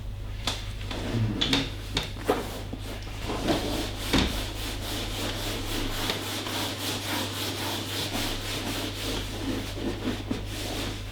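Hands rubbing and massaging over a patient's skin and clothing in a steady rasping rhythm, with a few sharp clicks in the first few seconds.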